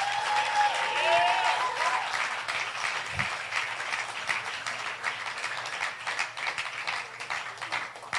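Congregation applauding: a dense patter of many hands clapping, with a high whooping voice over it in the first two seconds, the clapping thinning out toward the end.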